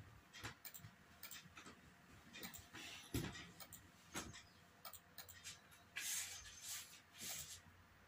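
Faint, irregular clicks from moves being played in a fast online bullet chess game, several a second at times, with two short rustling noises about six and seven seconds in.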